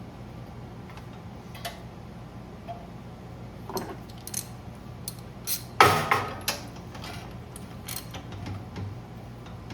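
Metal clicks and clinks of tools and a spark plug being handled and threaded back into a small generator engine, with a louder clatter about six seconds in, over a steady low hum.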